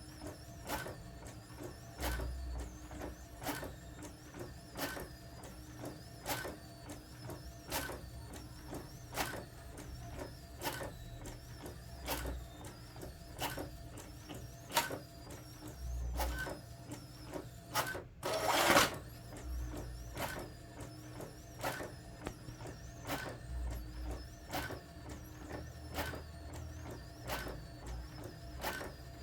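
Brother DCP-T700W ink-tank inkjet printer printing: a steady motor hum with a sharp click a little more than once a second as the print head shuttles back and forth. About two-thirds of the way through comes a single louder, noisy burst of about half a second.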